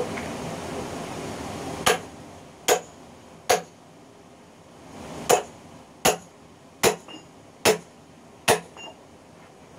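Hammer striking a steel wedge set in an oak log to split it. There are eight sharp, ringing metallic blows about 0.8 s apart: a run of three starting about two seconds in, then a run of five after a short pause.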